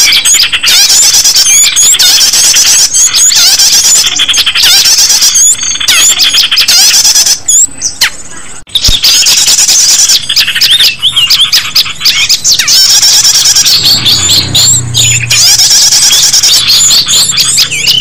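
Bird-lure (pikat) recording of small songbirds: a loud, dense, unbroken stream of rapid high chirps, squeaks and whistled glides from several birds calling together, with a brief lull a little past halfway. A low hum joins underneath near the end.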